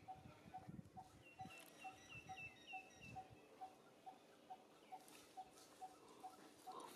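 Faint birdsong: one bird repeats a short low note about twice a second, and from about one to three seconds in another bird adds a quick run of short falling chirps.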